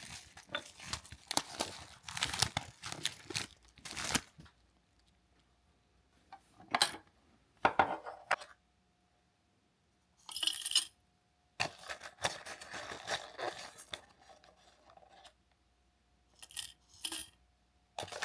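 Handling of food packaging and tableware during a meal: short crinkles, tearing and light clinks in scattered bursts, with quiet gaps between them.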